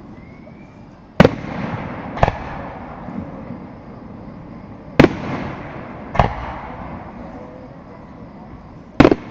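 Aerial fireworks shells bursting: five sharp booms that come in pairs about a second apart, each trailing off in a short rumble.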